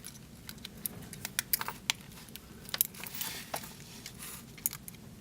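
Small scattered clicks and light taps of a new 377 button-cell battery and a tool being worked into the open back of a quartz pocket watch.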